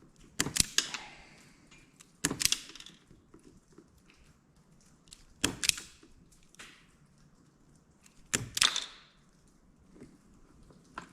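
Hand tools and parts being handled during electrical wiring work: four sharp clacks a few seconds apart, each with a short ringing tail.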